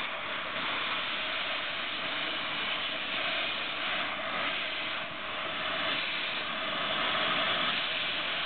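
Oxy-fuel cutting torch hissing steadily as it cuts through a rusted steel beam.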